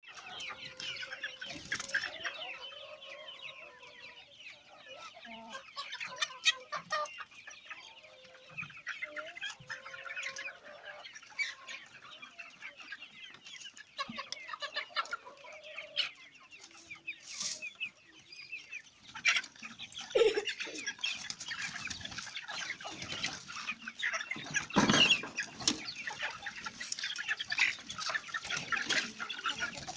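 Flock of improved village chickens clucking. The calling grows denser about two-thirds of the way through as the birds spill out around the coop, and there is one loud, sudden sound near the end.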